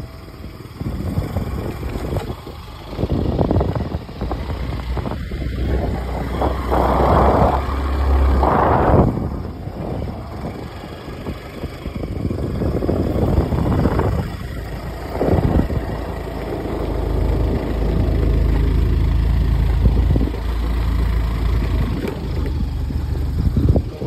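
Wind buffeting the phone's microphone in uneven gusts, a low rumble that swells and drops.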